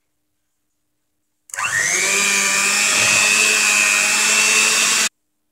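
Electric hand mixer running with its twin beaters in cake batter, mixing in flour and milk. The motor spins up with a rising whine about a second and a half in, runs steadily, and cuts off abruptly near the end.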